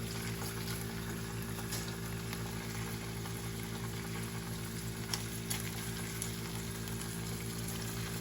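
Fish fillets pan-searing in hot oil, a steady sizzle with a few sharp pops about five seconds in, over a steady low hum.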